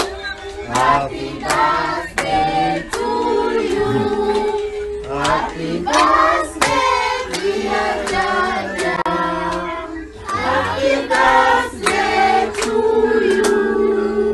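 A group of people singing together, clapping their hands along with the song.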